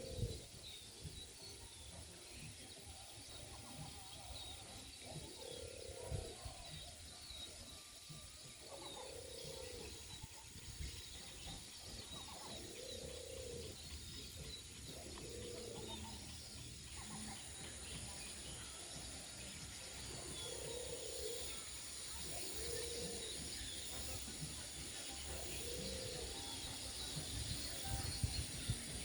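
A large flock of birds chirping all together, with a low cooing call repeating every few seconds, like a dove's. A thin, steady high-pitched whine joins about halfway through.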